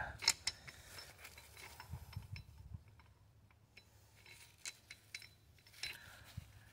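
Scattered light metallic clicks and clinks from handling a hand-held hydraulic cable-lug crimper as a lug on 4/0 battery cable is set in its die, with a short lull in the middle.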